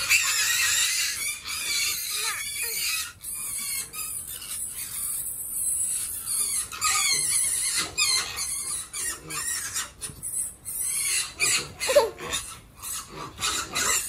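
A group of weaned piglets feeding together at a trough, squealing in a continuous string of short, high-pitched bursts.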